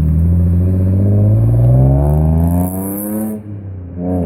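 Datsun 260Z's L26 inline-six engine revving, its pitch climbing steadily for about three seconds, then dropping off before a quick blip of the throttle near the end.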